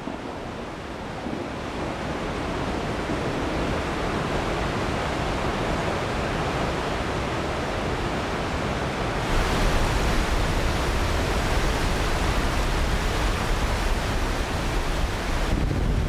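Waterfall: a steady rush of falling water that builds slowly, then grows louder and brighter about nine seconds in.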